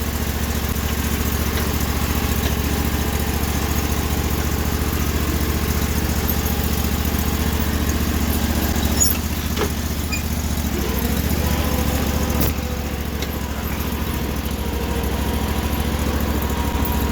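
Small single-cylinder engine of a Sears garden tractor running steadily, with a couple of brief knocks about halfway through.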